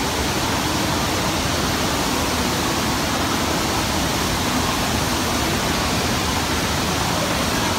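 FlowRider wave machine's pumped sheet of water rushing steadily up its padded slope: a constant loud water roar.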